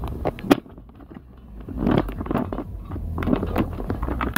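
Phone being handled right against its microphone: a sharp click about half a second in, then two stretches of rubbing and scraping noise, over a steady low rumble of the car.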